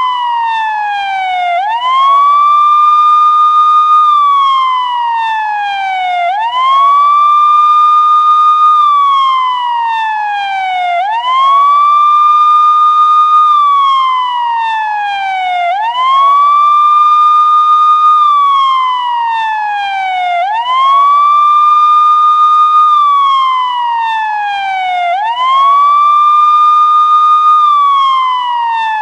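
Police siren wailing in a steady cycle. Its pitch sweeps up quickly, holds high for a couple of seconds, then slides slowly down, about every five seconds.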